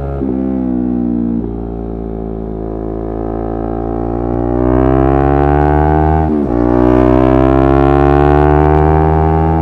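Yamaha R3's 321 cc parallel-twin engine under acceleration, its pitch climbing steadily. It shifts up a gear just after the start and again about six seconds in: each time a brief break, a drop in pitch, then a fresh climb.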